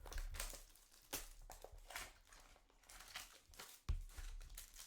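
Trading cards and their plastic holders being handled on a table: repeated short rustling and crinkling with small clicks, and a soft thump about four seconds in.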